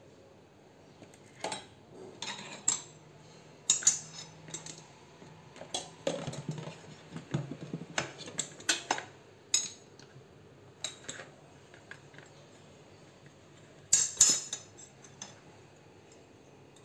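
Steel spoons and a fork clinking and scraping against each other and a stainless-steel blender jar while peanut butter is scooped in. The clicks come irregularly, with the loudest cluster about fourteen seconds in.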